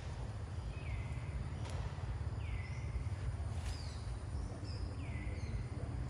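A high animal call that sweeps down in pitch and levels off, repeated about every one and a half seconds, over a steady low rumble.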